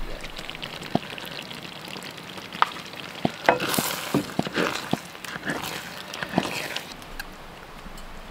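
A serving spoon stirring and ladling thick chicken and dumplings from a pot, with about a dozen sharp clinks of the spoon against the pot and bowl over a steady hiss.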